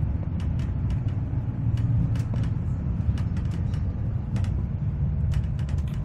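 Steady low rumble of a moving road vehicle, with frequent light rattles and clicks over it.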